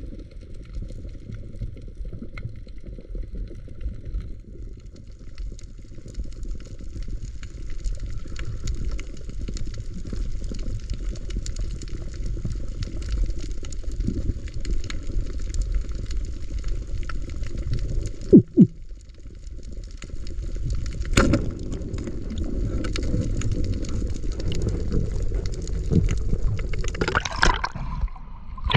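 Underwater sound picked up by a diver's camera swimming over a reef: a steady low rumble of water moving past the housing. A few sharp knocks come about two thirds of the way through, and there is splashing near the end as the camera breaks the surface.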